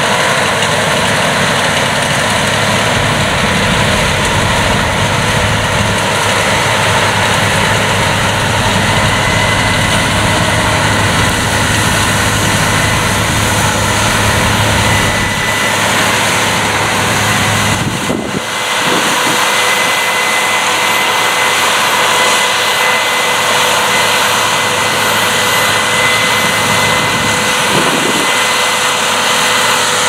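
Case IH 9120 Axial-Flow combine harvester running under load while cutting wheat: a loud, steady engine and threshing drone with a thin high whine over it. About two-thirds of the way through it dips briefly and carries less low rumble afterwards.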